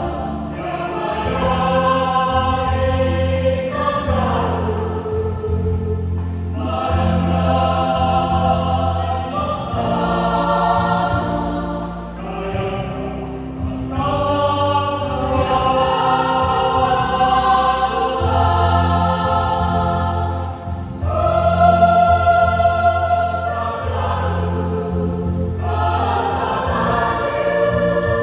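Youth choir singing a church hymn in parts, holding sustained chords phrase by phrase with brief breaths between phrases.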